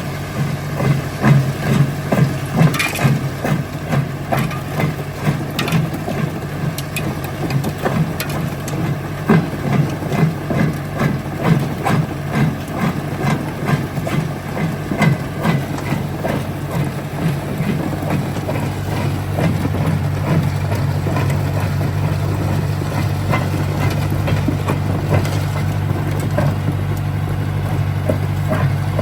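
Jaw crusher crushing stone, with irregular cracking and knocking of rock over a steady engine hum. The knocking thins out in the last third, leaving mostly the steady running of the machine.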